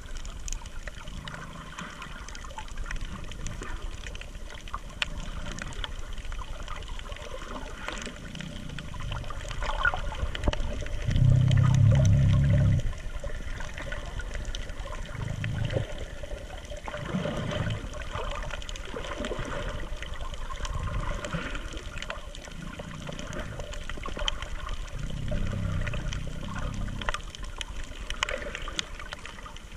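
Seawater sloshing and trickling against a camera held just under the surface, heard muffled and close. Low muffled bursts come every few seconds, with a louder, longer one near the middle.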